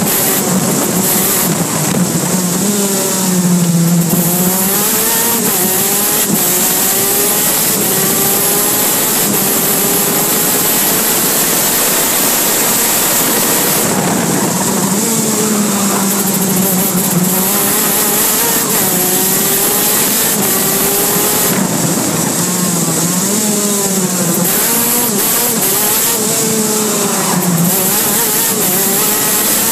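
KZ2 shifter kart's 125cc two-stroke engine heard onboard at racing speed, its loud note climbing and dropping again and again as it is driven hard around the circuit.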